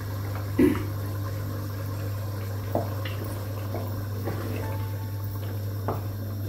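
Pot of meat and water simmering on the stove, a faint bubbling over a steady low hum, with a few light knocks and clicks and one louder knock about half a second in.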